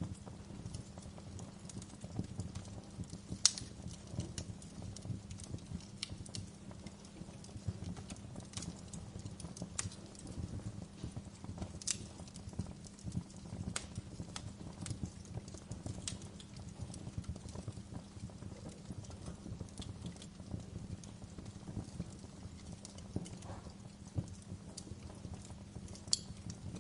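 Wood fire burning in a fireplace: a steady low rumble of flames with frequent irregular sharp crackles and pops, the loudest pop a few seconds in and another near the end.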